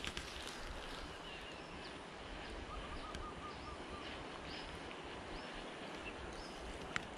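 Outdoor background ambience with birds calling: scattered short high chirps, and a quick run of about five short notes a little under halfway through. A single click sounds near the end.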